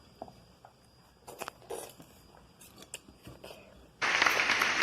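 Faint scattered clicks and taps, then about four seconds in, loud applause starts suddenly.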